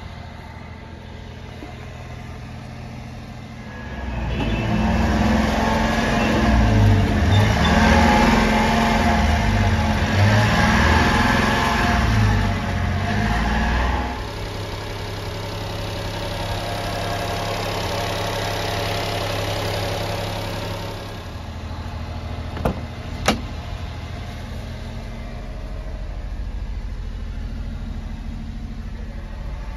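Honda Acty truck's small three-cylinder engine idling, then revved a few times for about ten seconds before settling back to a steady idle. Two short sharp clicks come a little over two-thirds of the way through.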